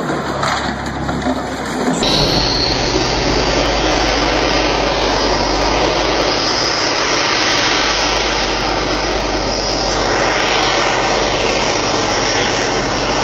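A pulling semi truck's diesel engine running flat out under load, a loud steady rushing noise that starts about two seconds in, with a high whine at first.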